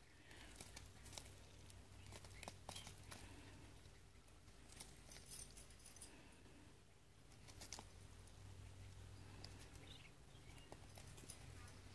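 Near silence with faint, irregular small clicks: a young duck's bill pecking and nibbling at a piece of green vegetable on dirt ground.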